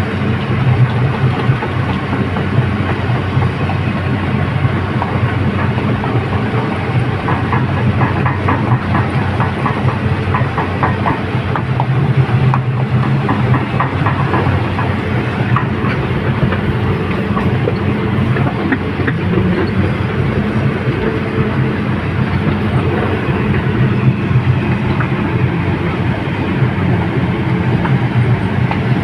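Excavator diesel engine running steadily under load, with rattling and clanking of the steel tracks, busiest around the middle.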